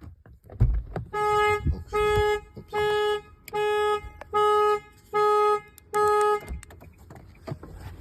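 Car horn of a 2020 Nissan Sentra honking seven times in an even rhythm, each honk about half a second at one steady pitch, the repeating pattern of the car's alarm going off.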